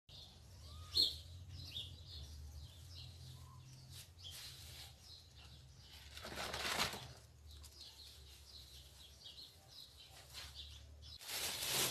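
Kitchen scraps tipped from a plastic bag into the tub of an old washing machine used as a compost bin: a brief rustle and pour about six seconds in, with more bag rustling near the end. A sharp click comes about a second in, and faint bird chirps sound throughout.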